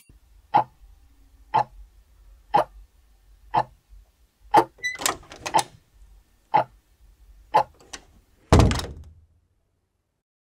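Dubbed-in sound effects: a run of short, evenly spaced thuds about one a second, with a quick flurry of them a little past halfway, then one heavier thump with a brief tail-off about eight and a half seconds in.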